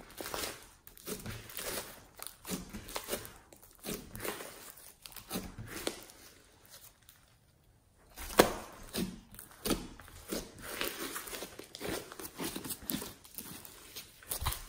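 Blue floam slime, foam beads mixed into slime, being squeezed, folded and stretched by hand: an irregular run of short sticky squelches and crackles. It goes almost quiet for about a second some seven seconds in, then picks up again with a sharp snap.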